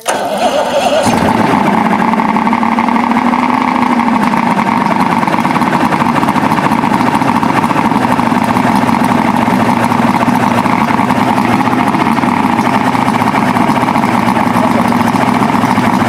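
Yamaha 200 HP two-stroke V6 outboard engine catching and starting, revving briefly, then settling within a few seconds into a steady run. It is the first run after new heads were fitted to a rust-seized engine.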